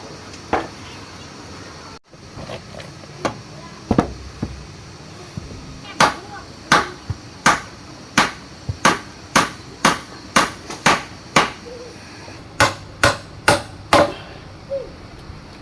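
A hand tool striking repeatedly: a few separate knocks, then a steady run of about fifteen sharp blows at roughly two a second, with a short pause partway through.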